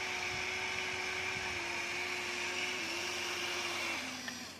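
Electric motors of a Huina remote-control toy excavator whining steadily as it swings and raises its boom and bucket. The pitch drops in small steps a few times and the whine cuts off near the end.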